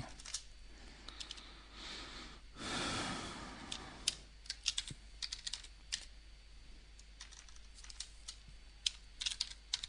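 Computer keyboard being typed on: runs of quick key clicks as a text field is backspaced and a new word typed in. A brief rush of noise comes about two and a half to three and a half seconds in.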